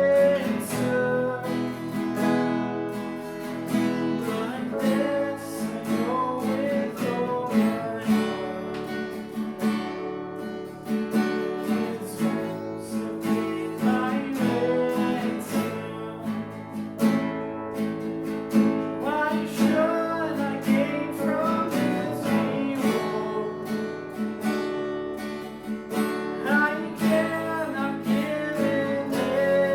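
Acoustic guitar playing a worship song, strummed and picked without a break.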